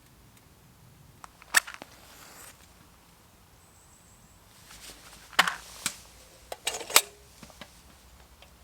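A few sharp clicks and snaps from handling a wood-burning tent stove, one alone about a second and a half in, then a quick cluster later, with brief soft hisses between them.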